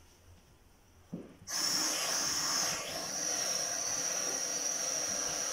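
Perfume spray hissing in one long continuous spray that starts suddenly about a second and a half in.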